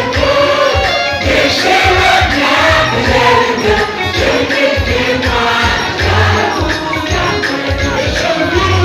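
Worship music: a group of voices singing together over a heavy, repeated drum beat.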